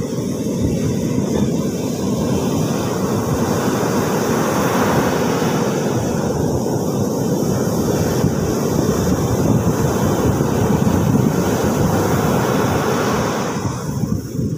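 Ocean surf breaking and washing up a sand beach: a continuous rushing wash that swells and eases, its hiss thinning out near the end.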